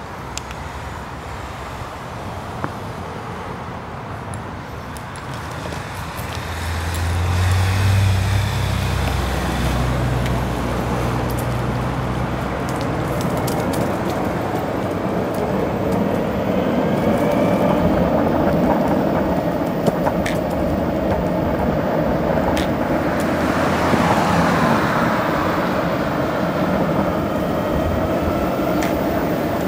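Skateboard wheels rolling on an asphalt path, with cars passing on the road alongside. The rolling noise grows louder about seven seconds in, and a few sharp clicks come later.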